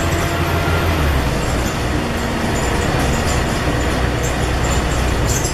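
Scania N113 double-decker bus heard from on board, its engine running under way with a steady low drone over road noise. The engine note drops about a second in.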